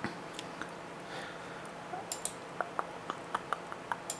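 Computer mouse clicking and scrolling through an installer's option list: a few separate light clicks, then a quick even run of about eight clicks at roughly five a second in the second half.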